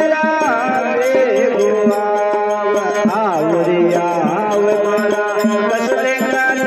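Krishna devotional bhajan music. A melody line wavers and glides over held notes, with a steady hand-drum beat underneath.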